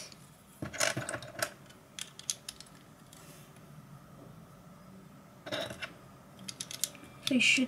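Plastic LEGO bricks clicking and clattering as they are handled and pressed onto a model, in two short runs of quick clicks, about a second in and again around five and a half seconds in, with a quiet stretch between.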